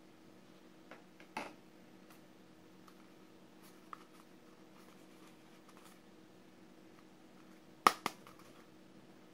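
Plastic toy binoculars handled on a tabletop: a few soft clicks and knocks, then two sharp plastic clicks in quick succession near the end, over a faint steady hum.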